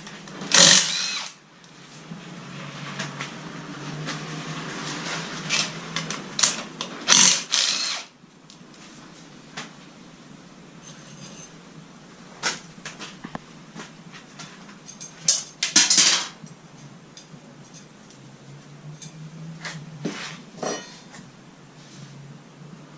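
Handheld power tool running in stretches on the motorcycle, with sharp metallic knocks and clinks of tools and parts between the runs.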